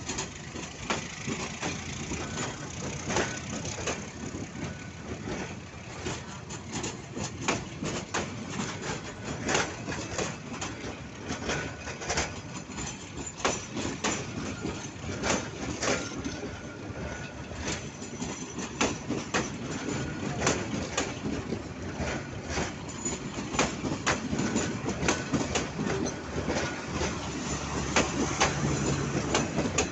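Metre-gauge commuter train moving with its diesel locomotive: an irregular run of sharp clanks and clicks from wheels and couplings over a steady engine hum, which grows louder near the end.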